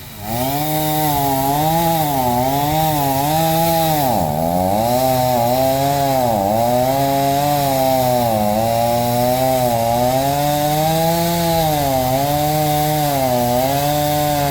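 Chainsaw running under load, cutting into a burnt pine trunk. The engine speed wavers and dips as the chain bites, sharply about four seconds in and again near six and a half seconds, then recovers.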